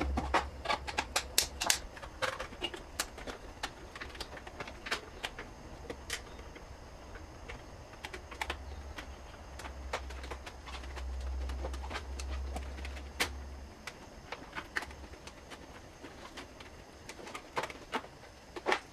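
Plastic clicks and taps of a mass airflow sensor housing and its intake hose and clamp being handled and pushed into place, quick and dense for the first few seconds, then scattered. A faint low hum runs underneath and stops about two-thirds of the way through.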